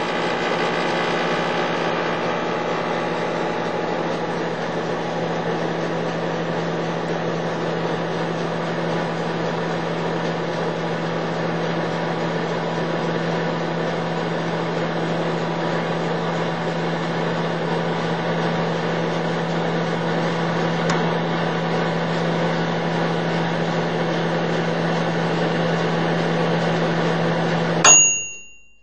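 Steady droning hum with a strong low note and many held higher tones, unchanging throughout. Near the end a sudden sharp hit with a brief high ring, then the sound cuts off.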